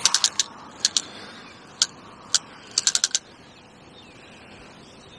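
Fishing reel's drag clicking in short irregular bursts, about fifteen sharp ticks in the first three seconds, as a hooked fish pulls line off the spool.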